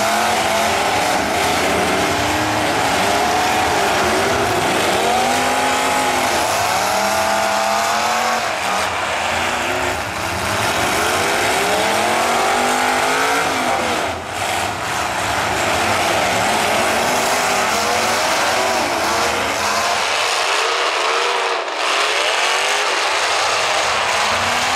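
Several demolition derby trucks' engines revving hard, their pitch climbing and falling again and again over steady loud noise.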